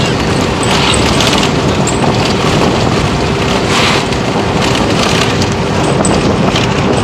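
Toyota car driving at speed, heard from inside the cabin: a steady rush of wind and road noise with a steady low hum under it, and a few brief louder gusts of wind hiss.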